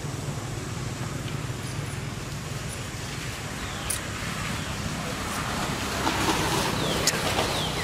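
Outdoor background noise with a steady low engine hum, as of traffic nearby, and a few short clicks and chirps near the end.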